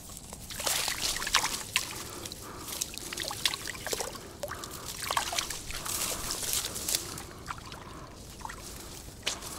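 Water splashing and sloshing in irregular bursts, with small trickles and drips in between.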